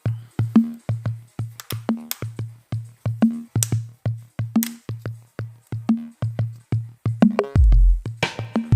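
Electronic intro music with a drum-machine beat and synthesizer, and a heavy bass line coming in near the end.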